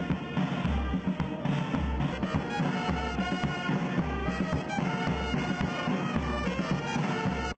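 Brass marching band playing a tune, horns and saxophones over a steady bass drum beat.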